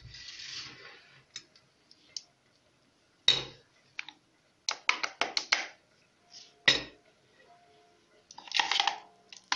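Metal spoon scraping and knocking against a food chopper's bowl as thick quince purée is scooped out into a steel bowl: scattered clicks and clinks, two sharper knocks about three and a half and seven seconds in, and a short scraping rasp near the end.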